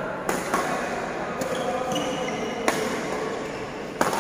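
Badminton rally: rackets strike the shuttlecock in several sharp cracks, about one every second or so. Between hits come short high squeaks, typical of shoes on the court mat, and everything echoes in a large hall.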